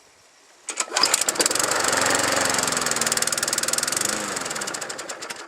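Small lawnmower engine running on a tank of nitro fuel: it fires up abruptly about a second in, runs loud and fast for about four seconds, then fades and dies away near the end.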